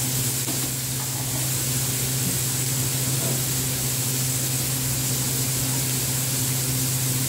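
Chopped tomatoes and onions cooking in a frying pan on a gas burner: a steady hiss, over a steady low hum.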